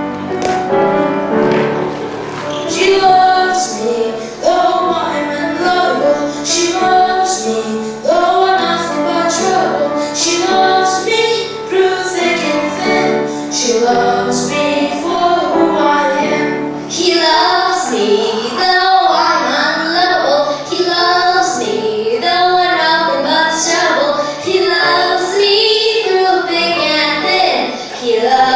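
Children's voices singing a song with musical accompaniment, the sound growing fuller about halfway through.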